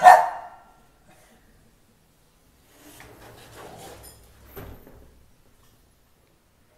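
A short, sharp, loud sound at the very start that dies away in under a second. Then, from about three seconds in, an aluminium-framed door rubs along its track for about two seconds and ends in a click.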